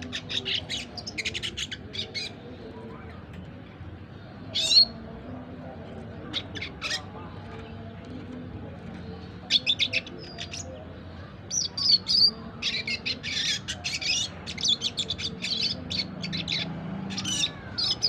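Four-month-old red siskin practising its twittering 'ngriwik' song, a young bird still learning it: a short fast run of high chirps at the start, a couple of single calls around 5 and 7 seconds, then a longer stretch of rapid twittering bursts from about 10 seconds on.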